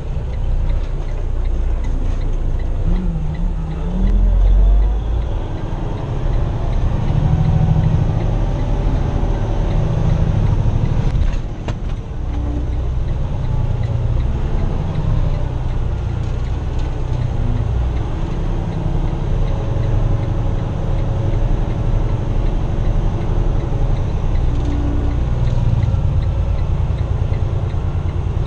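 Semi truck's diesel engine running, heard from inside the cab while the tractor-trailer is driven slowly. Its low rumble rises and falls with the throttle, with a short dip in level about twelve seconds in.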